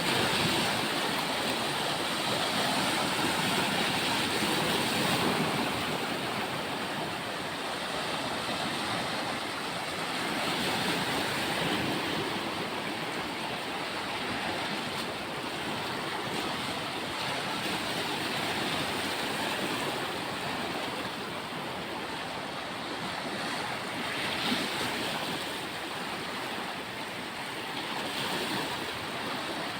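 Sea surf washing onto a beach, a steady rush of water that swells and eases every several seconds as waves come in.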